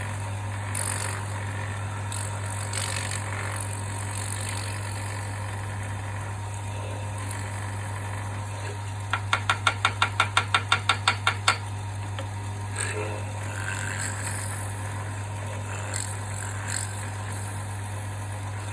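Wood lathe running steadily with a constant hum while a long, self-guiding drill bores a tang socket into a wooden knife-handle blank. A little past the middle comes a run of quick, regular ticks, about six a second, lasting about two seconds.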